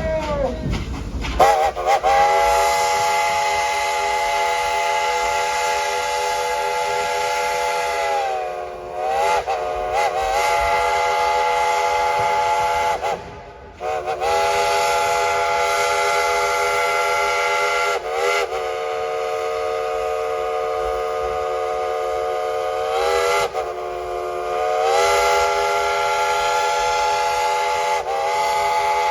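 New York Central step-top five-chime steam whistle blowing a steady chord with a hiss, in long held blasts of several seconds each. At each short break the chord slides down in pitch and comes back up.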